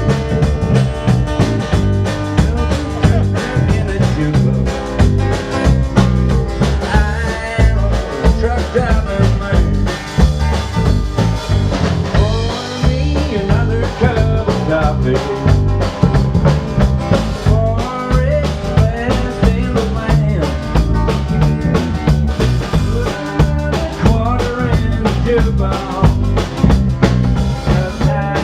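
Live country and western band playing, with a drum kit keeping a steady beat with rimshots under a melodic lead line.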